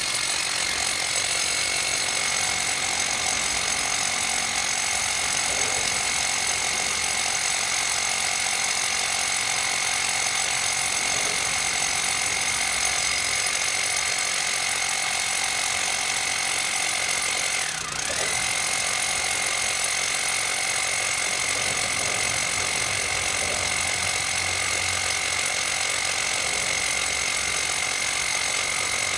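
Handheld electric power tool running continuously with a steady high-pitched motor whine; about 18 seconds in the pitch dips briefly and comes straight back up, as if the motor is loaded for a moment.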